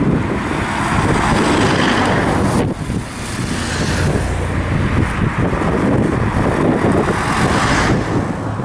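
Two cars passing close by one after the other: a Peugeot 406 estate team car with a bicycle roof rack, then a Peugeot hatchback. Their engine and tyre noise swells with each pass, with a short lull between the two about two and a half seconds in.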